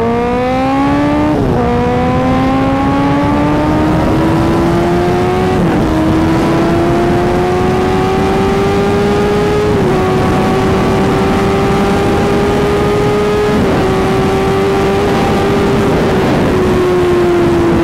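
Honda CBR1000RR inline-four engine at full throttle, its pitch climbing steadily between four quick upshifts, as the bike accelerates from about 190 to over 260 km/h. Heavy wind rush runs under the engine, and the revs ease off slightly near the end.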